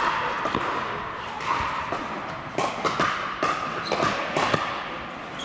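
Irregular sharp pops of pickleball paddles hitting plastic balls on several courts at once, echoing in a large indoor hall.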